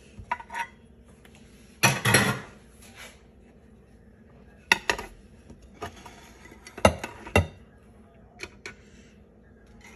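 Metal muffin tins clanking as they are moved and set down: a handful of separate knocks, the loudest about two seconds in, with more around five and seven seconds.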